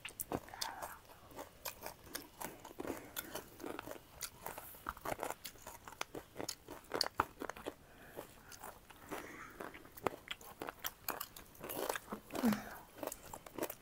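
Close-up crunching and chewing of chatpate, a Nepali puffed-rice snack mixed with cucumber and salad: many quick crisp crunches, irregular and continuous.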